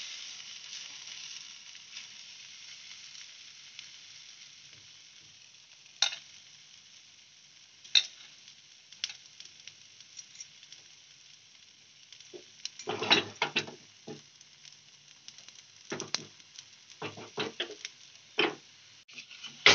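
Pancake batter sizzling in hot ghee in a nonstick frying pan, the hiss fading over the first few seconds as it settles. Sharp clicks and knocks come now and then, bunched in the second half.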